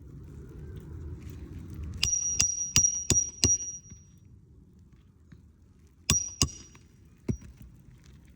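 Hammer striking roofing nails into an asphalt shingle: five quick blows with a short metallic ring, then two more and a single last tap.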